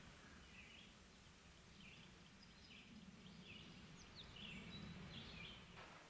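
Near silence: faint outdoor ambience with distant birds calling in short repeated phrases over a low steady rumble.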